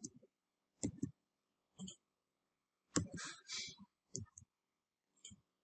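Computer mouse and keyboard clicks from someone working in 3D modelling software: a few scattered single clicks, with a quick cluster about three seconds in.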